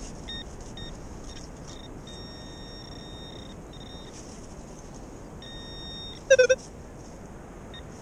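Minelab Equinox 600 metal detector giving a run of beeps at one steady pitch, first short ones, then two held for about a second and a half and one for about a second. These are false signals with no target under the coil, which the detectorist puts down to interference from his phone. About six seconds in comes a brief, louder warbling chirp.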